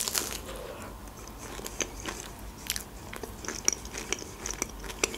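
Close-miked bite into a crisp pastry dessert, a sharp crunch at the start, followed by chewing with many small crackly crunches and mouth clicks.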